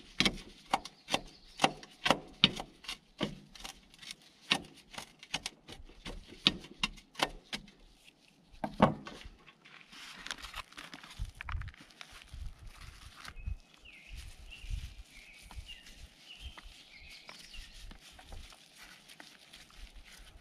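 Knife chopping herbs on a metal baking tray, sharp strikes about twice a second for the first eight seconds or so, ending with one louder strike. After that, softer rustling and low thumps as the herbs are handled and pressed onto a raw beef roast in a foam tray.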